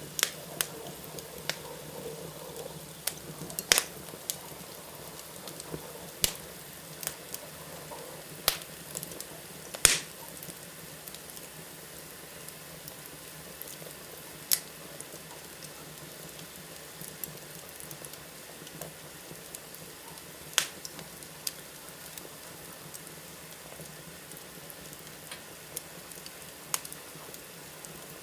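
Wood fire in a fireplace crackling: a steady low hiss broken by irregular sharp pops, a handful of them much louder snaps.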